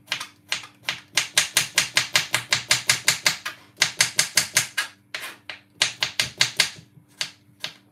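Knife slicing a cucumber on a wooden chopping board: quick, even chops at about six a second, in runs broken by short pauses.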